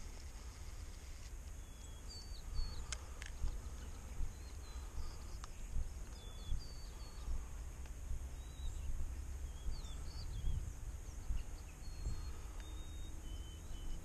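Small birds giving short, high chirps scattered throughout over a steady low rumble, with a few sharp clicks about three and six seconds in.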